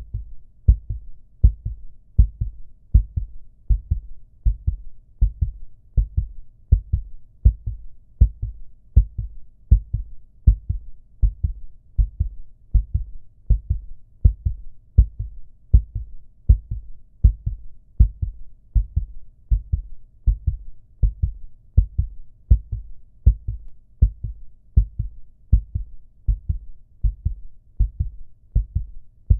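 Human heartbeat sound effect: steady, low lub-dub double thumps, a little faster than one beat a second.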